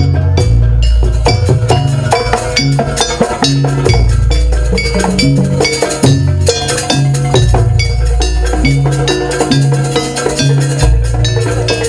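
Javanese jaranan gamelan ensemble playing a sampak piece: quick ringing strikes on bronze gongs and metallophones over drumming, with deep gong notes recurring every few seconds.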